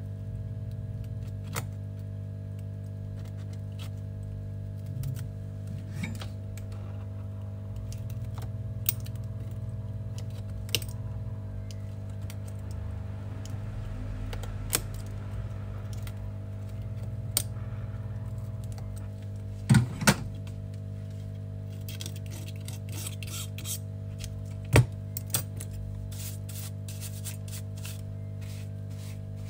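Scalpel blade scraping and picking broken back-glass fragments and adhesive off an iPhone 12 mini's metal rear frame: scattered small clicks and scratches, a few sharper clicks about two-thirds of the way through, over a steady low electrical hum.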